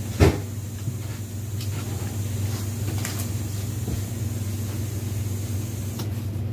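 A steady low hum, with one short thump just after the start and a few faint clicks.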